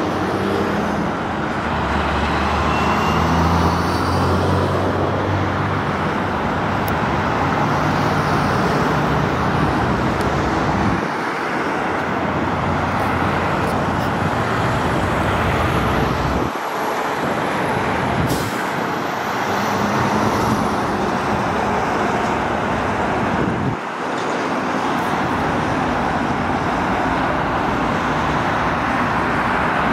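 Steady roar of busy highway traffic, with a heavy vehicle's engine hum in the first few seconds and the sound breaking off briefly a few times.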